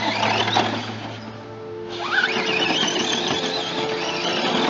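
Electric drive motor of an RC truck whining. It drops away about a second in, then rises sharply in pitch around two seconds in as the truck accelerates, and wavers up and down with the throttle after that. Music plays underneath.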